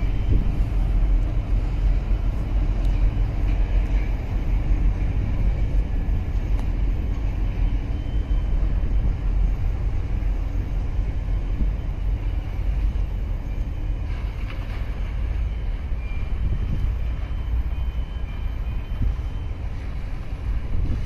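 Steady low rumble of wind buffeting the microphone and water washing past, from a boat under way on choppy water.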